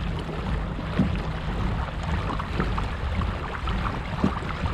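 Water splashing and lapping against the hull of a pedal-drive kayak under way, with a few light knocks about a second in and again near the end.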